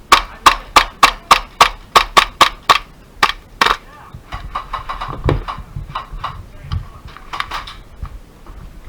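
Airsoft gun firing close by, about a dozen sharp single shots at roughly three a second over the first four seconds, followed by quieter scattered clicks and knocks, with one dull thump about five seconds in.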